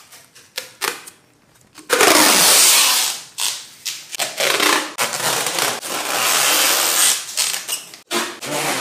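Packing tape being pulled off the roll in a run of loud, rasping rips while a cardboard box is taped up. The rips start about two seconds in, after a few small clicks.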